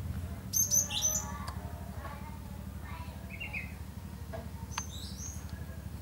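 Caged gelatik songbird giving short, sharp, high-pitched chirps. A quick cluster of them comes about half a second in, a brief lower note around three seconds, and another cluster near five seconds.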